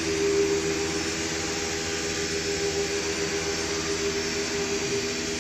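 Eight-spindle CNC router cutting a wood panel: the spindles give a steady whine of several held tones over a constant rush of air from the dust extraction.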